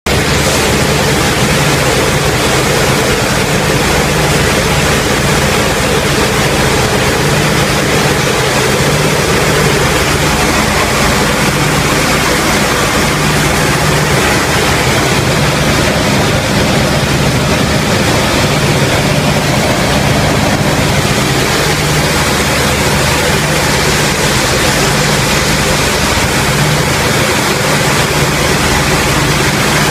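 WWII bomber's radial piston engines droning steadily in cruising flight, with a loud rush of wind, heard from inside the glazed nose.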